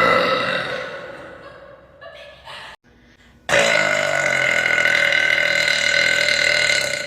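A young woman's long, loud belches. The first trails off over the first couple of seconds. After a short break, a second sustained belch starts about three and a half seconds in and runs on for about three and a half seconds.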